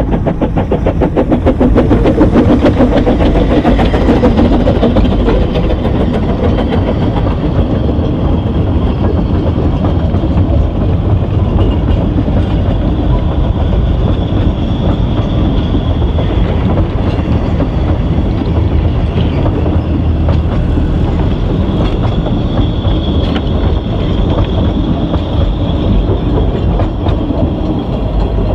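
A Ffestiniog Railway narrow-gauge steam train passes close by. The locomotive's exhaust beats are loudest in the first few seconds, and then the carriages roll past steadily as the train moves away.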